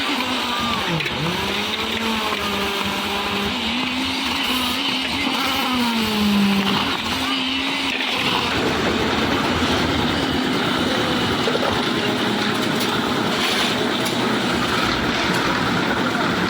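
Concrete mixer machine's engine running. Its pitch wavers up and down for the first half, then gives way to a steady, dense mechanical rumble.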